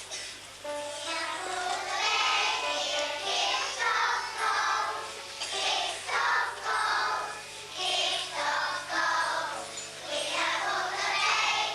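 Children singing a song with musical accompaniment, over a steady low hum.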